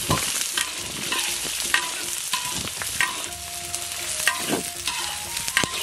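Scallion, ginger and onion sizzling in hot oil while being stir-fried to release their fragrance, with frequent sharp clicks and scrapes of stirring against the pan.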